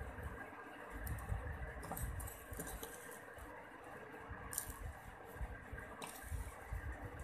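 Faint handling sounds of fingers pinching white sugar and sprinkling it onto a wet, sticky slice of aloe vera leaf, with soft squishy contact and light grainy patter. Two sharp light clicks come in the second half.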